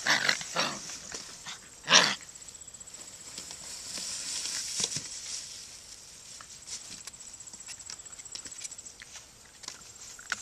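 Young puppies squealing and yelping in play, with the loudest yelp about two seconds in, then softer scuffling and occasional small sounds.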